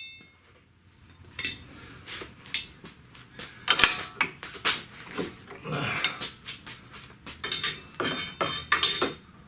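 Irregular metallic clicks and clanks of a hand wrench or ratchet working on a steel suspension nut, a few strikes ringing briefly.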